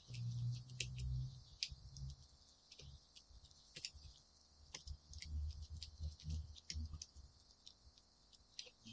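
Scattered small clicks and taps with irregular dull bumps: a rubber edge seal being pressed by hand onto the metal rim of a van door's window opening.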